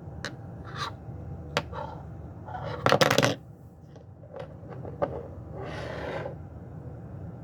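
A Ridge Runner sunfish pocket knife being handled: a few sharp clicks and scrapes, with a louder rustle about three seconds in, over a steady low hum.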